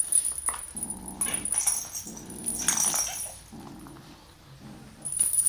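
Kitten growling in three or four low, rough stretches during rough play over a wand toy, with short scratchy noises on top.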